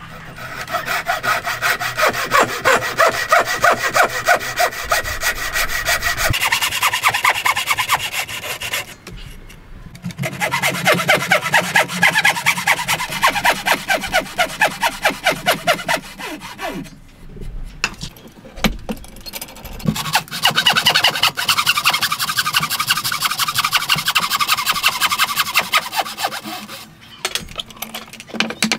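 A wooden frame saw (bow saw) cutting through a softwood beam by hand in a steady rhythm of quick back-and-forth strokes, the teeth rasping on the wood. The sawing stops briefly twice and starts again.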